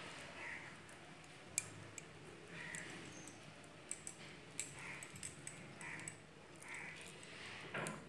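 Faint, soft squishing of wet hands pressing a sticky khoya mixture around a sweet ball, with a few small sharp clicks.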